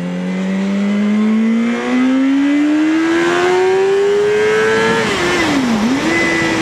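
Yamaha R1 inline-four sport-bike engine revving up steadily under acceleration for about five seconds. The revs then fall away sharply, dip and jump back up in a quick throttle blip, the rev-matching blip of a downshift.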